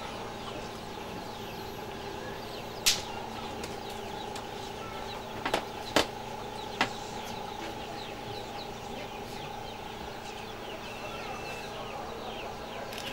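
Birds chirping throughout in many short high calls, over a steady hum. A few sharp knocks break in, the loudest about three and six seconds in.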